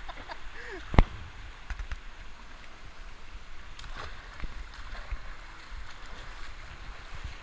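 Pool water sloshing and splashing close to a camera held at the water line, with one sharp knock about a second in.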